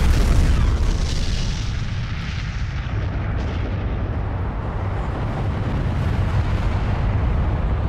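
Atomic bomb explosion sound effect: loudest at the start, right after the blast, then a long, steady, deep rumble.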